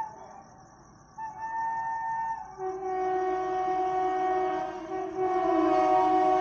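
Horn of the approaching Howrah Amritsar Mail's electric locomotive: a short higher blast about a second in, then a long two-note horn from about halfway, getting louder toward the end as the train nears.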